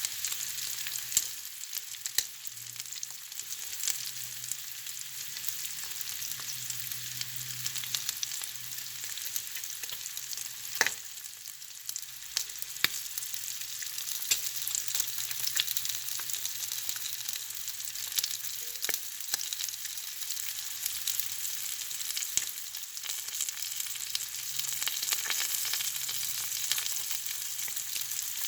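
Bacon sizzling and frying in a pan: a steady high hiss with sharp pops and crackles scattered throughout.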